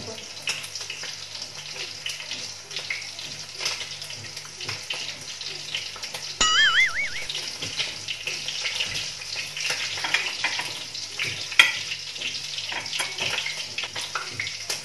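Chicken pieces frying in hot oil in a pan, a steady sizzling crackle, with occasional sharp clinks of a fork against the pan. A brief wavering whistle-like tone sounds about six and a half seconds in.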